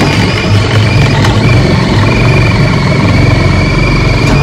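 Cordless drill driving a single-tooth TCT hole saw (Pro-Fit) through a timber batten: a loud, steady motor whine over the grind of the cutter in the wood.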